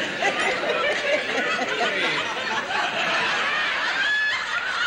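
Laughter: a woman chuckling and giggling, with other voices mixed in.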